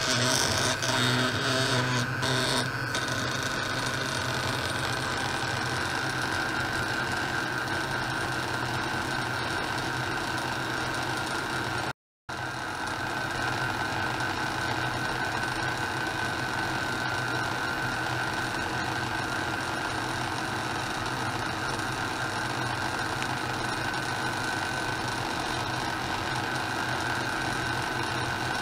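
Steady buzzing hum with a constant high whine, from an ultrasonic probe setup driven by a function generator and vibrating metal rods. A few knocks and clicks come in the first couple of seconds, and the sound cuts out completely for a moment about halfway through.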